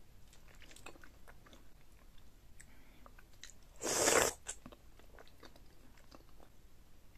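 Close-miked eating sounds: small mouth clicks and smacks of chewing, with one loud, short noisy burst about four seconds in as a spoonful of food in chili butter sauce goes into the mouth.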